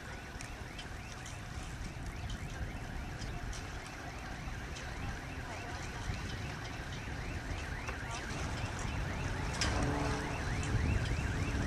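Wind rumbling on the microphone under a steady series of short rising chirps, about three a second. Near the end the sound grows louder and a low tone with several pitches joins in.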